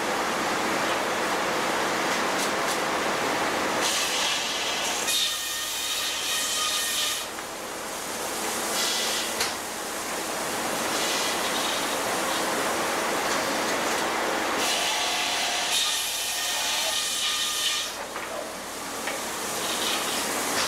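Sawmill machinery running: a circular saw and log conveyors make a steady, noisy rush. Twice, for about three seconds each, a higher whine rises over it as the saw runs through wood.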